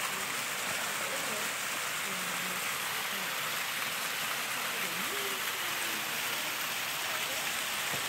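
Small waterfall splashing steadily down a rock face into a pool, a constant rush of falling water.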